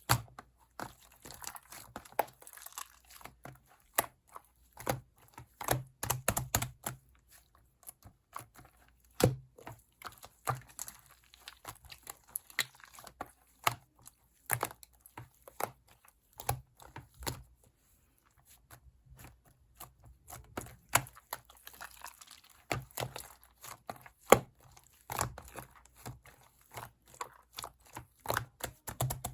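Irregular close-up taps, clicks and crinkling of small objects being handled by hand, with short bouts of paper-like rustling.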